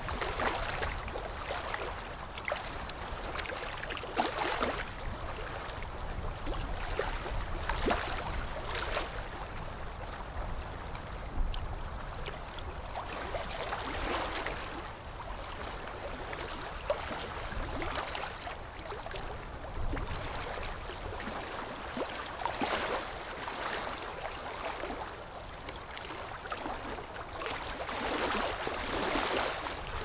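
Small waves lapping onto a sandy shore, swelling and easing every few seconds as each one washes up and draws back.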